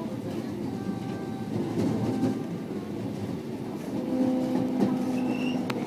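JR West 223 series electric train running slowly, heard from inside the carriage: a steady low rumble with a faint even hum, and a single sharp click near the end.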